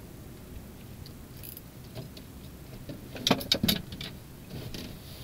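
A fishing rod and reel being handled, with a short clatter of several metallic clicks and rattles a little after three seconds in.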